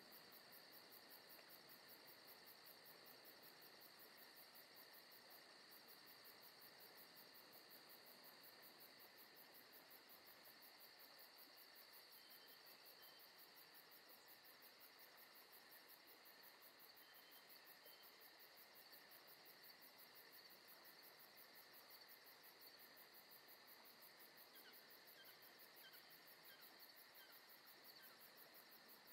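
Near silence: a faint, steady high-pitched hiss.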